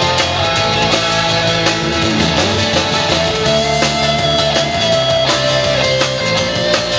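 Live band music: electric guitar, bass guitar, acoustic guitar and a drum kit playing together, loud and steady.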